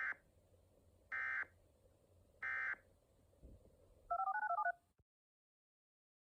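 Emergency Alert System end-of-message code: three short bursts of buzzing digital data tones about 1.3 s apart, the first already ending as the sound begins. A quick string of touch-tone (DTMF) digits follows, then it cuts to silence about five seconds in.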